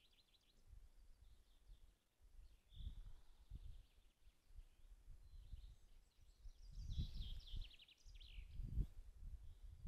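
Faint songbird chirps and calls, with a quick trill of repeated falling notes about seven seconds in, over an uneven low rumble.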